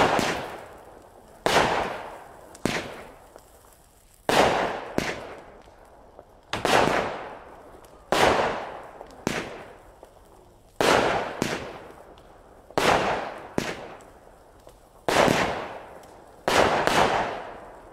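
Stealth Fireworks 'Da Capo' firework barrage (cake) firing shot after shot, about fifteen in all, roughly one every second or so. Each is a loud report that trails off over about a second.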